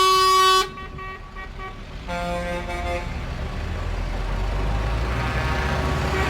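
Truck horn sounding one long steady honk that cuts off under a second in. A shorter honk of several tones at once comes about two seconds in. Then a truck engine runs, growing slightly louder.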